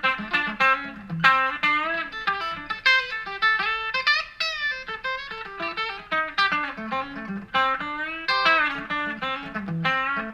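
Electric guitar playing improvised single-note lead lines, with a few string bends. The guitar is a Fender Modern Player Telecaster on its bridge humbucker coil-tapped to single coil, played clean through a Vox VT20X amp.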